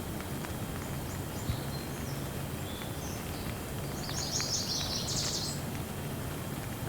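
Steady rain, with scattered drops ticking sharply. Birds chirp over it, in a brief flurry of high chirps a little past the middle.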